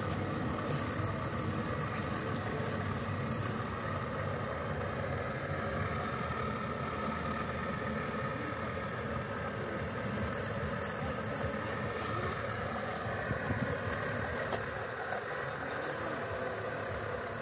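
Remote-control Cat 336D model excavator's electric motors and gearing whirring steadily as it digs soil and swings its boom.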